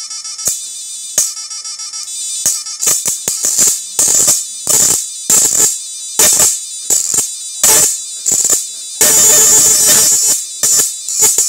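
Electric arcing from a homemade 7000 W IGBT inverter fish-shocking machine as its output rod is struck against a steel bar: irregular bursts of high, buzzing crackle that start and stop abruptly, the longest and loudest about nine seconds in.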